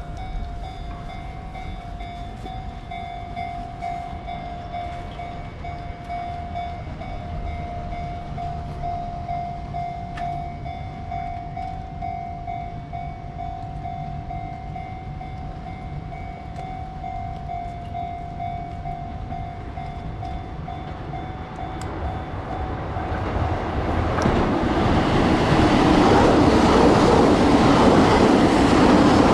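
Railway level-crossing warning bell ringing steadily. About twenty-three seconds in, a Keihan train comes through the crossing, and its loud running noise over the rails builds up and drowns the bell out.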